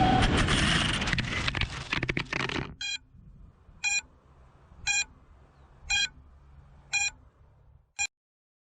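A loud rushing, crackling sound cuts off abruptly about three seconds in. Six short, high electronic beeps follow at about one a second, the last one shorter.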